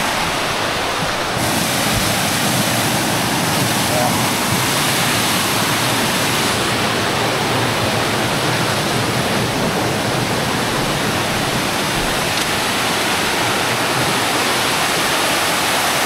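Steady rush of water from a stream and waterfall cascading over rock, an even hiss with no breaks.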